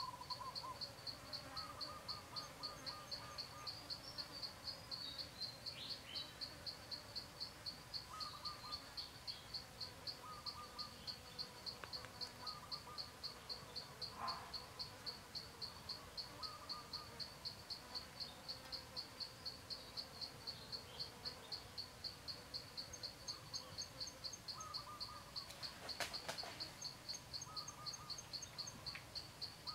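An insect, cricket-like, chirps steadily in a fast, even rhythm of about three high-pitched pulses a second. Faint short bird-like notes come and go beneath it, and there is a single faint click near the end.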